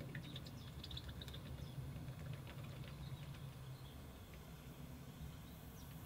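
Quiet room tone: a steady low hum with faint scattered ticks and small chirps, most of them in the first couple of seconds.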